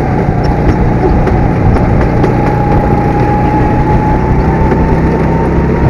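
Go-kart engine running at speed, heard from the driver's seat, with a thin whine that climbs slightly in pitch as it goes.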